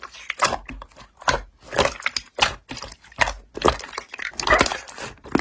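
Slime being squeezed and poked by hand, giving irregular crackling and popping clicks.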